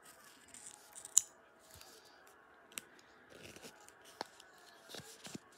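Scissors snipping open a handmade paper blind bag, with scattered sharp clicks and paper crinkling; the loudest snip comes about a second in.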